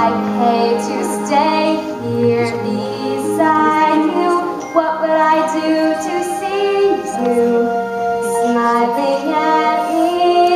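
A young girl singing a solo with long held notes, over musical accompaniment.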